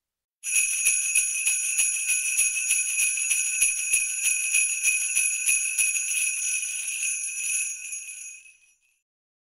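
Sleigh bells jingling in a steady shaken rhythm, starting about half a second in and fading away near the end.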